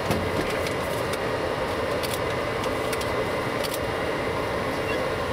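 Steady running noise inside a Boeing 707 cockpit, from the aircraft's engines and air systems, with a few light clicks.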